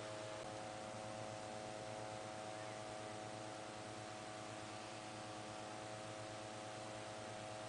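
Petrol-engine inflator fan running steadily as it blows air into a hot-air balloon envelope: an even hum over a hiss.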